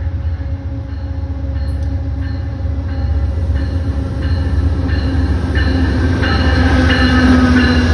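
Amtrak GE P42DC diesel locomotive hauling a passenger train along a station platform: a deep engine rumble that grows louder as it comes close and passes, with high squeals coming in over it and building from about three seconds in.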